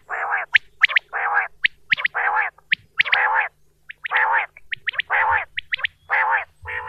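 Common quail calling: a run of harsh, low notes about one a second, with quick, sharp high notes in between. A steady low hum runs underneath.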